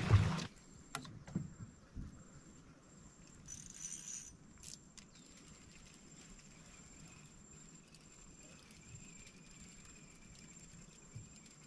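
A small 15 hp outboard motor running, cut off abruptly within the first half second. After that only faint scattered clicks and a short hiss from tackle handling, with a thin steady high tone in the second half.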